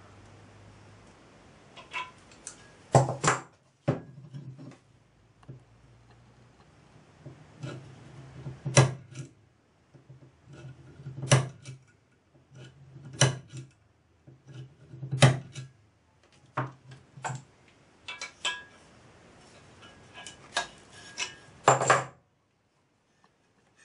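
Brass fittings and hand tools clinking and knocking against a small copper boiler shell as the sight-glass fittings are trial-fitted and tightened: sharp metallic clinks, the loudest about every two seconds, over a faint low hum. The sound cuts off suddenly near the end.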